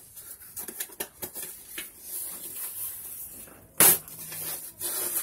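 Rustling and crackling of a shipping envelope being handled and torn open, with one loud, sharp rip a little under four seconds in.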